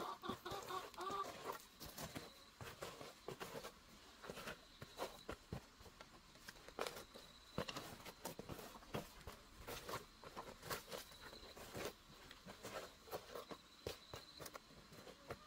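Rubber boots stamping and tamping loose soil around the base of a wooden post, making irregular soft thuds and scuffs. A chicken clucks briefly in the first second or so.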